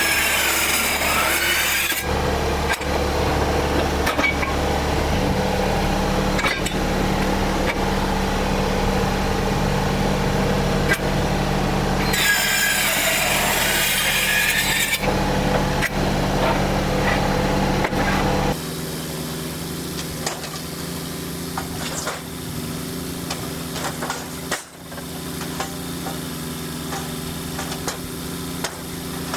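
A steady engine running throughout, with two bursts of harsh hissing noise from metalwork, one at the start and one a little before halfway through. The engine sound changes abruptly a little past halfway, to a lower, quieter note.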